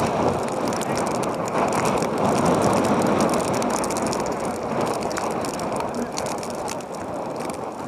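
Steady, fairly loud outdoor field noise with indistinct distant voices and scattered light clicks.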